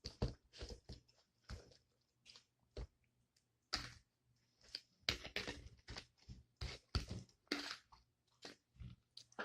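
Close-up chewing and crunching of a taco salad with crisp tortilla shell and lettuce, in irregular crunchy bites, sparse at first and more frequent from a few seconds in.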